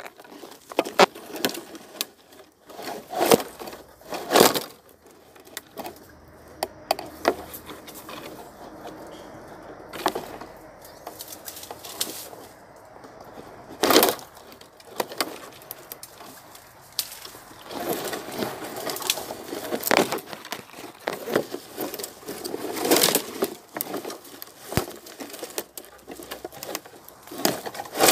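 Dry twigs and leaves rustling, crunching and snapping in irregular bursts of cracks, with a quieter stretch in the middle.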